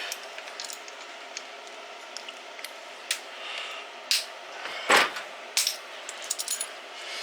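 Metal hand tools clinking and knocking against a small engine while a stuck screw is worked loose. The loudest knock comes about five seconds in, followed by a quick run of light clicks.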